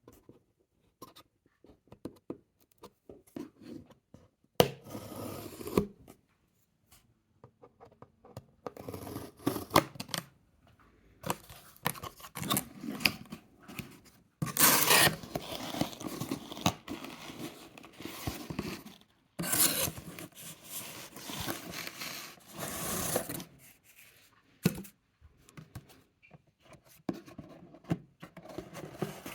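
Cardboard case being cut and torn open by hand: irregular bursts of cutting, scraping and tearing with short pauses between, the longest stretches about halfway through.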